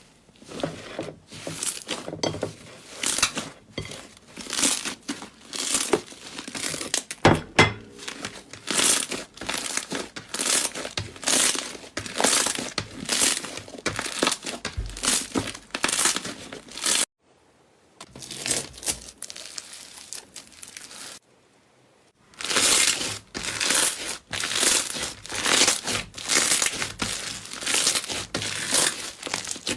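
Slime being squeezed and stretched by hand, making a run of short crackly, squelchy noises about one or two a second, with two brief silent breaks.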